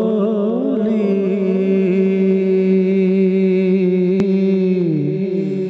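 Devotional naat singing: a steady held drone under a solo male voice sliding slowly through a melismatic line, the melody dipping lower near the end.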